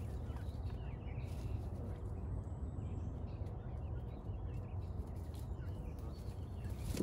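Canada goose goslings peeping softly in short, faint chirps over a steady low rumble.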